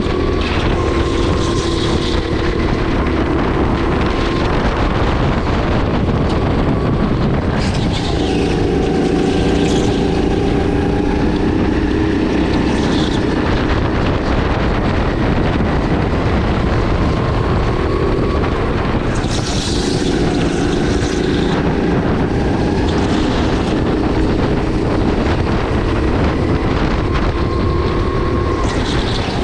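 Sodi RX8 kart's 270cc LPG engine running on track, its pitch rising and falling over and over as it accelerates and eases off, with gusts of wind noise on the microphone now and then.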